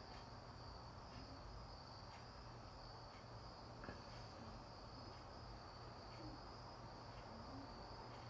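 Faint, steady chorus of crickets and cicadas: one unbroken high-pitched trill.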